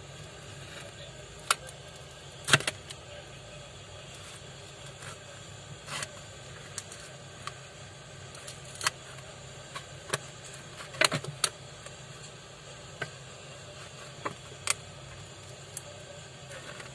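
Scattered sharp clicks and taps of a smartphone and its adhesive back film being handled and pressed on a workbench, irregular, over a steady background noise.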